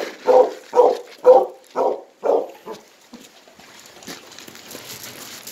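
A hound dog barking about six times in quick succession, roughly two barks a second, then faint rustling.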